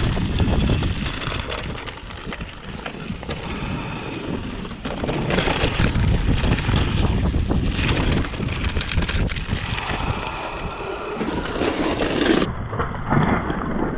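Wind buffeting a helmet-mounted action camera's microphone, with the rattle and knocks of a mountain bike going fast over rough downhill trail.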